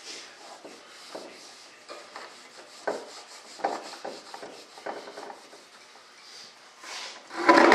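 Hands rubbing and wiping over a large molded model-aircraft part while waxing the mold, in short irregular strokes, with a louder burst of handling noise near the end.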